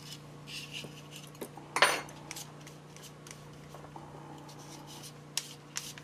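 Small metal tool scraping and clicking against a camera lens's front lettering ring as it is pushed round to unscrew it on very fine threads. One louder scrape comes about two seconds in, followed by scattered light clicks.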